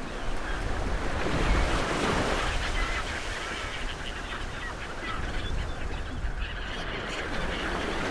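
Ocean waves washing on the shore, swelling about a second in and easing off after. Faint short bird calls are scattered through it.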